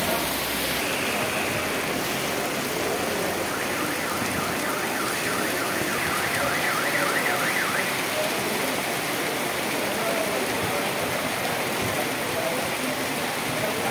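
Steady rain falling on a street and parked cars. In the middle, a car alarm sounds in quick, repeated rising-and-falling sweeps for about four seconds.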